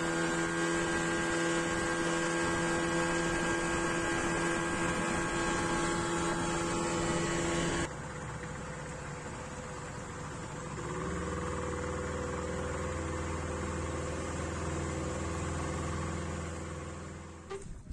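A small boat's outboard motor running steadily at speed, with a steady even pitch. After an abrupt cut about eight seconds in, it runs at low revs with a deeper, quieter note, which fades out near the end.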